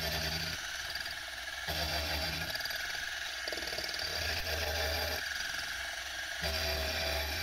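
Milling machine face-milling a sand-cast aluminium bracket: the spindle and cutter run with a steady high whine, and a lower cutting rumble comes and goes several times as the cutter passes over the casting.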